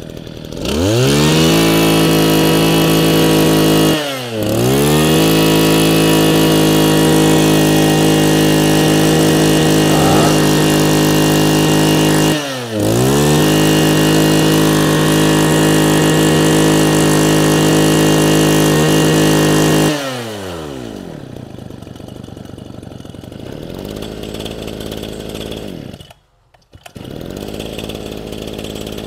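Mitsubishi TL261 26cc two-stroke brush cutter engine being test-run. It is revved and held at full throttle with two brief dips about 4 and 12 seconds in, then let back down to idle about 20 seconds in. The idle breaks off for a moment near the end.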